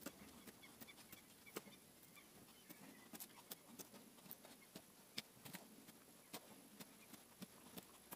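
Faint, irregular clicks and short scraping cuts of a hand carving knife paring into a wooden spoon blank, about two or three a second.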